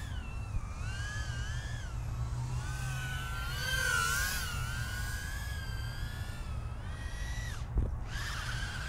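Brushless motors of a tiny 75 mm FPV whoop drone whining, the pitch swooping up and down with throttle as it flies a power loop. A short thump comes near the end.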